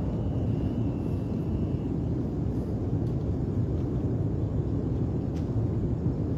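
Erupting Mount Ruang stratovolcano giving a steady low rumble, continuous and deep with no separate blasts.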